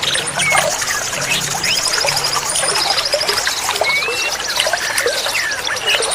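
Trickling water with a chorus of small wild birds: many short chirps and whistles, and high, fast-pulsed trills above them.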